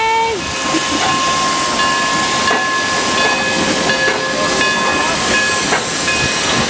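Durango & Silverton K-36 steam locomotive No. 482 rolling slowly past as it comes to a stop at a flag stop, with a steady loud hiss of steam and steady high squealing tones from the brakes and wheels, plus a few brief clanks.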